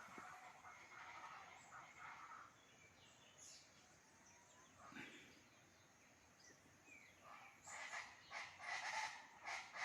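Wild birds calling faintly, with a louder run of rapid, repeated calls in the last two seconds or so.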